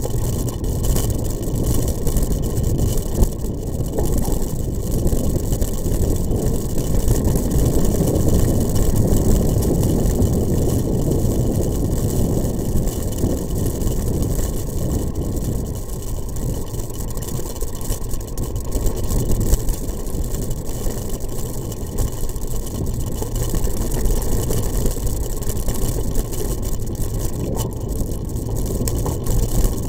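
A motor vehicle's engine running steadily at low speed over a rough, rocky dirt track, with a continuous low rumble and a few sharp jolts.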